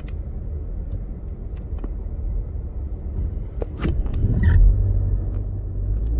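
Car on the move heard from inside the cabin: steady low tyre and road rumble, with a few faint clicks and a short louder swell about four and a half seconds in, after which a steady low hum joins the rumble.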